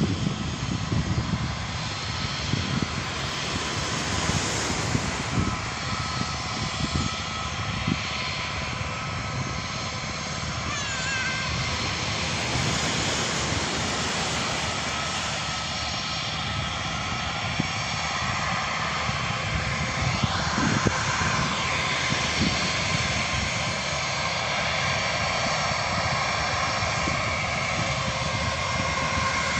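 Jet airliner engines near the airport: a steady rush of noise with a few thin whining tones, lasting the whole half-minute without a clear peak.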